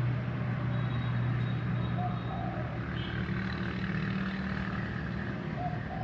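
Mini CNC wood engraving machine running: a steady motor hum whose tone shifts a little about halfway through as it works.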